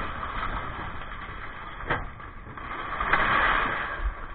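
Bin lift on a 2019 Dennis Eagle Elite 6 refuse truck working through a cycle with two wheelie bins, over the low hum of the truck's engine: a sharp knock about two seconds in, then a rushing swell about three seconds in.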